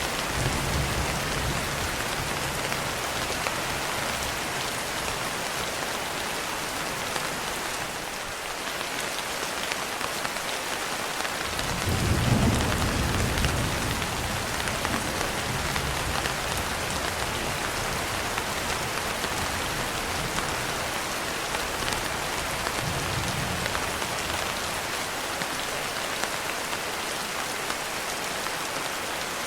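Steady rain falling, with thunder rumbling low: the loudest roll swells about twelve seconds in, with fainter rumbles at the start and about twenty-three seconds in.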